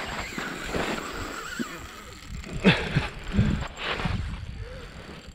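Ice-fishing rod and spinning reel worked during the fight with a big lake trout: the reel cranking in line, with clothing rustle and a few sharp knocks about halfway through.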